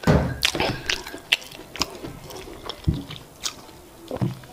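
Close-miked chewing of boiled yam with eggplant sauce: irregular wet mouth clicks and smacks, loudest just at the start.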